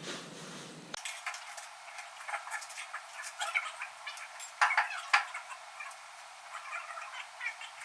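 Small metal clinks and taps of hand tools working on tractor parts, with a few sharper clanks a little past the middle.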